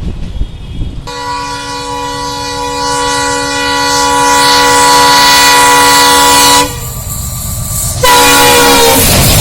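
Indian Railways diesel locomotive's horn sounded in two blasts over train rumble: one long steady blast of several tones together, then after a short gap a shorter blast whose pitch drops slightly.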